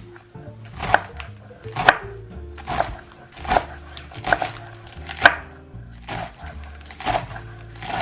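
A knife chopping on a cutting board in slow, even strokes, about one chop a second.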